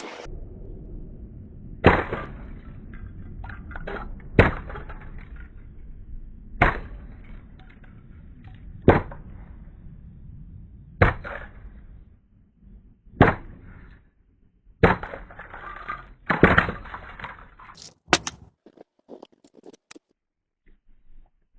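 A plastic alarm clock being smashed: about nine hard, cracking impacts, roughly one every two seconds, with a low rumble between the blows that dies away near the end.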